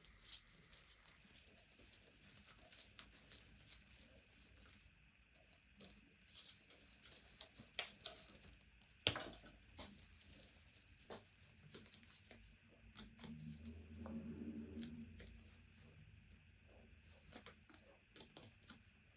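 Faint workshop handling noises: small clicks, scrapes and rustling of parts and tools being worked by hand, with one sharp knock about nine seconds in.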